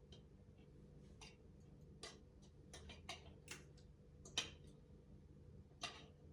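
Scattered light clicks and taps at uneven intervals, the sharpest about four seconds in, over a faint steady hum.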